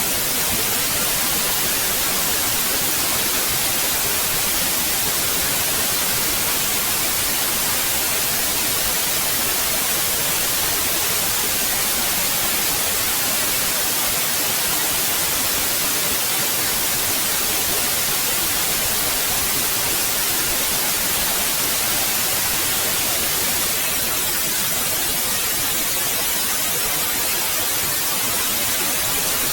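Steady, unchanging white noise: an even hiss strongest in the high frequencies, with no events or changes.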